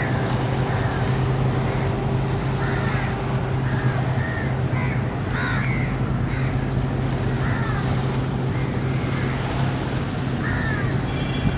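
Crows cawing, a short call every second or two, over a steady low hum.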